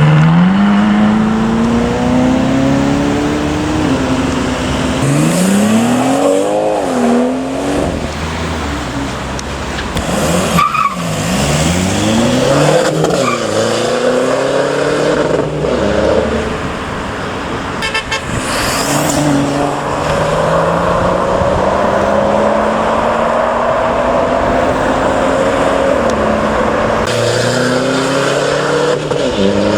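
Cars accelerating past one after another, engine pitch climbing through the revs and dropping back at each gear change. A long pull from about 17 to 27 seconds ends in a gear change near the end, and another car then starts climbing again.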